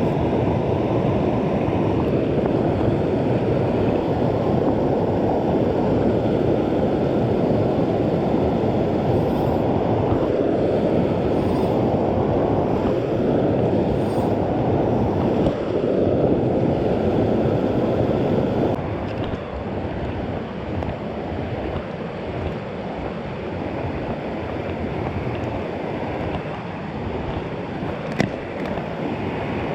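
Mountain creek water rushing steadily, a loud even rush that becomes somewhat quieter about two-thirds of the way through.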